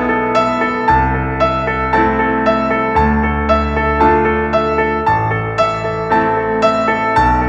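Background music: a soft keyboard or electric piano playing a repeating pattern of notes over slow-changing bass notes.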